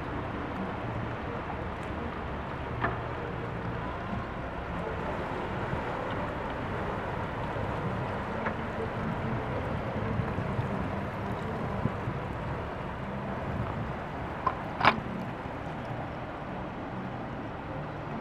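Boat engines running at low speed, a steady low drone under a wash of noise. A sharp click sounds about three seconds in, and a louder double click comes near fifteen seconds.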